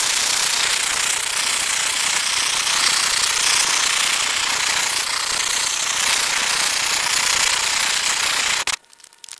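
Hand-held propane torch with a long wand burning open, a loud steady rushing of flame as it is swept over wooden boards to char them. It cuts off suddenly near the end when the torch is shut off.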